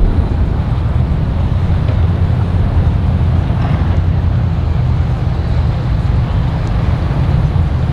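Boat engines running steadily with a low drone.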